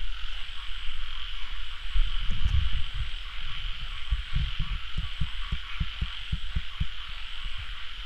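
Night forest chorus: a steady high-pitched chirring, the 'kacha kacha' noise that is taken for bats, with low thumps and, in the second half, a fast run of low pulses.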